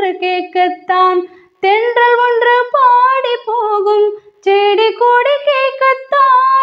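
A woman singing unaccompanied, a melody of short separated notes at first, then longer gliding held notes, with brief breaths between phrases.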